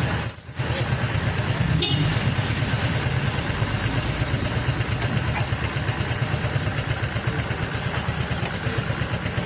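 Motorcycle engine running steadily while riding, with a steady rush of road and air noise. The sound drops out briefly about half a second in.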